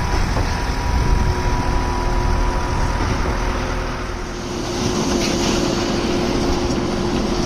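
Heavy construction machinery at a concrete pour running steadily: an engine rumble with a steady whine. A louder rush of noise joins about four and a half seconds in.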